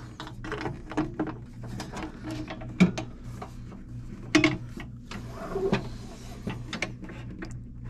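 Scattered light clicks, taps and a brief scrape of the fan light's plastic light panel against its metal housing and bracket as it is hooked back on and set in place, over a steady low hum.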